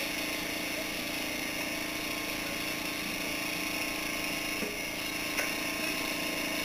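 A steady mechanical hum with hiss and several constant tones, unchanging, with a faint click about five seconds in.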